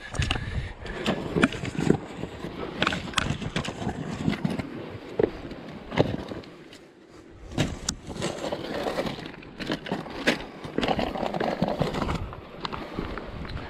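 Irregular knocks and clatter over a rumbling, gusty noise, with a quieter dip about seven seconds in.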